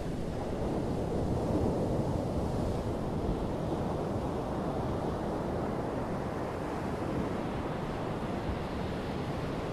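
Steady wash of sea surf breaking on a beach, with wind.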